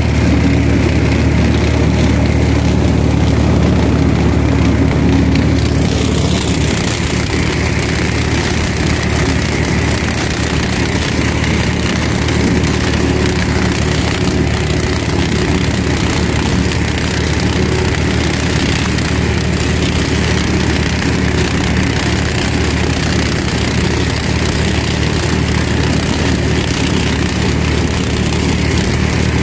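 IMT 533 tractor's three-cylinder diesel engine running steadily under load while driving a flail mulcher that shreds dry corn stalks. A hissing rattle from the mulcher and the chopped stalks grows louder about six seconds in.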